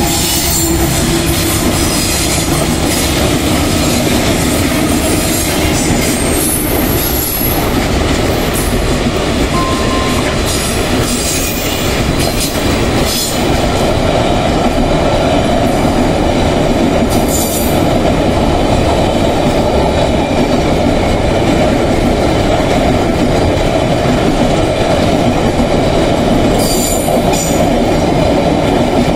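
Loaded freight train passing close by: its diesel-electric locomotives running as they go past at the start, then a long string of freight wagons rolling by with steady wheel-on-rail noise. Brief high-pitched wheel squeals come through at times.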